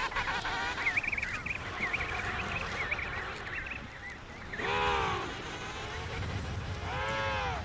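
Emperor penguins calling: a chorus of short, shrill, wavering calls, then two loud drawn-out calls, one about midway and one near the end. Low wind noise runs underneath.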